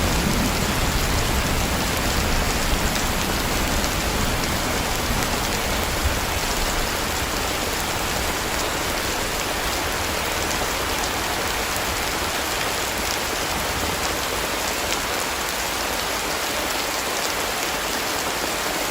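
Heavy rain falling steadily, with a low rumble of thunder dying away over the first several seconds.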